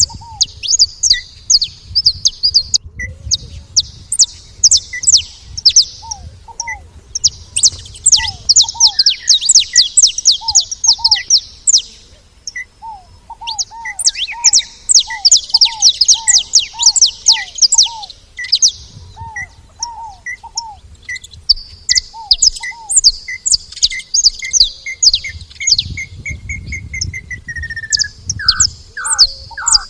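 A flock of saffron finches chirping in rapid high bursts of a few seconds each, with short gaps between them. Other bird calls mix in: a steady series of short notes about once a second that speeds up near the end, and repeated short drooping lower notes.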